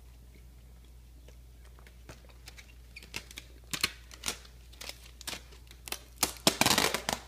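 An American Akita puppy licking peanut butter out of a jar: quick wet tongue clicks and smacks that start sparse about two seconds in, grow thicker, and run together into a dense loud burst near the end.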